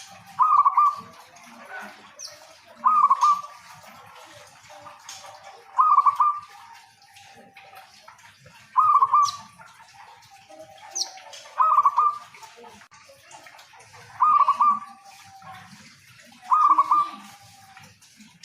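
Local zebra dove (perkutut lokal) cooing its song, repeated seven times. Each call is a short run of quick coo notes, coming about every two and a half to three seconds.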